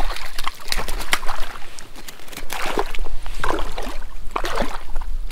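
Water splashing and sloshing beside a float tube as a small hooked trout thrashes at the surface and is landed, with irregular splashes and gurgles throughout.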